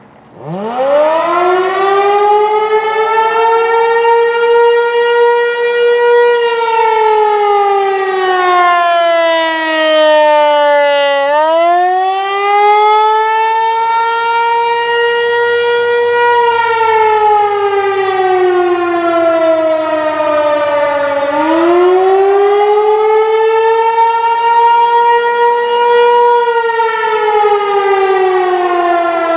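Federal Signal 508 rotating outdoor warning siren sounding the attack signal: it winds up from a low growl about half a second in, holds its high note for a few seconds, then slides down and climbs again, in cycles of about ten seconds.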